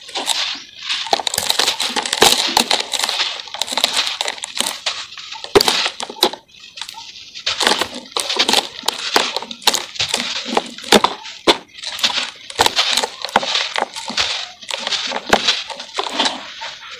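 Dry cement chunk being squeezed and crumbled by hand into loose powder: gritty crunching and powdery hissing with sharp crackles, coming in clusters with a short break about six seconds in.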